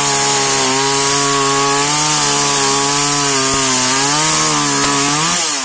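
Gas two-stroke chainsaw at full throttle cutting through a log, with a steady engine note over a high hiss of the chain tearing wood; the pitch sags a little as the chain bites. Near the end the throttle is released and the engine note falls away.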